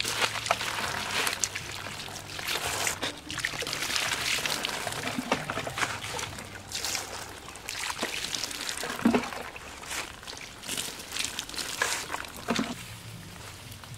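Water poured from a plastic jar splashing and trickling over a crocodile's scaly hide, in several irregular pours.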